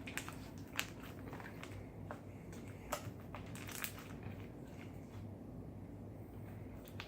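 Slime being kneaded and squeezed by hand, giving a handful of scattered short, sharp clicks and pops.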